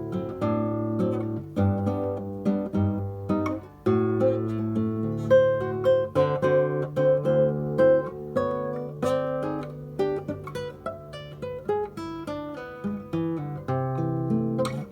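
Acoustic guitar playing a choro: a run of quick plucked melody notes over a moving bass line.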